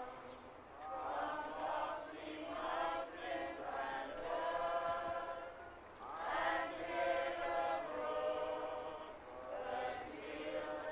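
A group of voices singing a slow hymn together without accompaniment, the mourners' choir at a graveside, in drawn-out phrases with short breaks between them.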